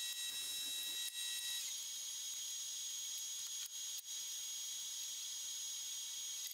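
Grizzly combination jointer-planer running without cutting: a steady high hiss with a faint high-pitched whine that changes about two seconds in, broken by a few brief dropouts.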